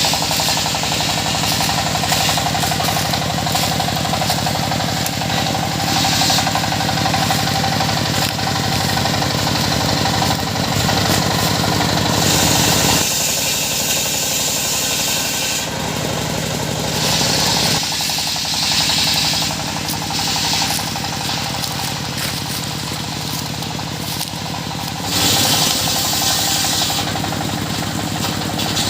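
Circular saw machine running steadily, its blade cutting into wood in several spells of a few seconds each. A higher, harsher cutting sound rises and falls over the machine's steady drone.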